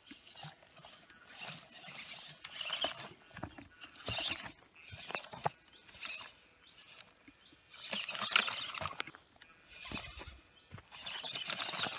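A 1/14-scale RC rock crawler's electric drivetrain whirring in short bursts of throttle as it climbs over stones. Sharp clicks and scrabbling come from the tyres and chassis on the rock between bursts.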